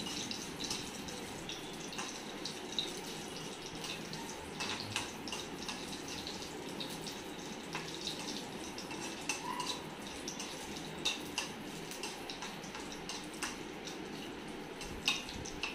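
Tempering of mustard seeds, curry leaves and green chillies frying in hot oil in a small pan: a steady sizzle with frequent small crackles and pops, and a metal spoon stirring against the pan.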